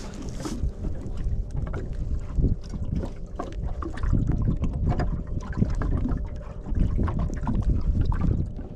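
Gusty wind buffeting the microphone aboard a small boat, with water slapping and small knocks against the hull, over a faint steady hum.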